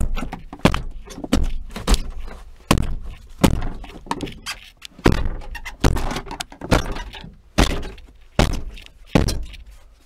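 Repeated kicks against the rear liftgate of a 2004 Toyota 4Runner: about a dozen heavy thuds, roughly one every three-quarters of a second. The liftgate stays stuck shut although its latch mechanism has been cut away.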